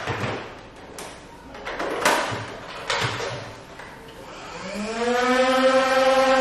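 A few clatters and knocks, then about four and a half seconds in a motorized Nerf blaster's flywheels spin up with a rising whine that levels off and holds steady.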